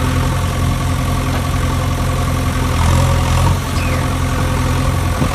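Steady engine idling sound, a low drone that holds one pitch without revving, set to a toy JCB backhoe loader being run across the floor by hand.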